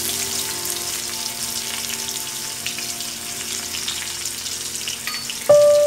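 Sliced onions sizzling and crackling steadily in hot oil in a wok, freshly added. Background music sits faintly underneath and comes in louder near the end.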